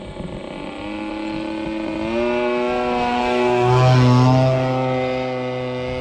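Radio-control model plane's motor and propeller running in flight. The pitch steps up twice as the throttle is raised, and the sound is loudest as the plane flies past about four seconds in.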